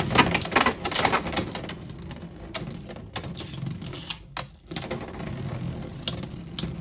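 Two Beyblade X spinning tops, Iron Man and Thanos, battling in a plastic stadium: a quick run of sharp clacks as they strike each other and the walls in the first second or so, then a steady spinning whir broken by a few single clicks.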